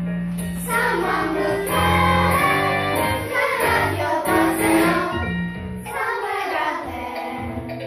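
Children's choir singing a show tune over a backing track with a steady bass line.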